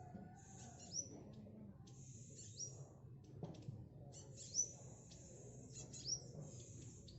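Black sunbird calling: high, thin chirps with quick upward-sweeping notes, given in short bursts several times.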